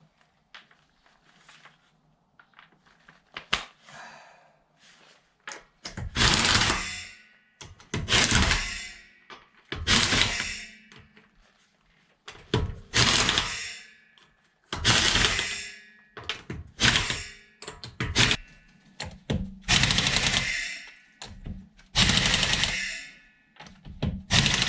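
Impact wrench running the lug nuts onto a wheel, in a dozen or so short hammering bursts about a second each, starting about six seconds in, after a few faint clicks. It is tightening the nuts short of full power, before a torque wrench finishes them.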